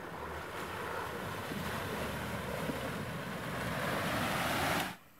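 Hunter WOLF six-wheeled unmanned ground vehicle driving through a muddy, water-filled rut, its wheels churning and sloshing mud and water, growing louder as it comes close, then cutting off suddenly near the end.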